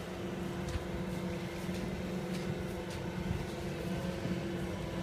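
Tracked rice combine harvester's diesel engine running steadily at constant speed as the machine crawls across a flooded paddy field, a steady even-pitched hum.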